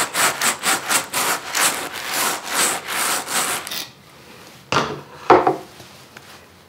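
Wool being carded by hand between two wooden hand cards: quick, even brushing strokes, about three a second, that stop about four seconds in. Two brief scrapes follow, half a second apart.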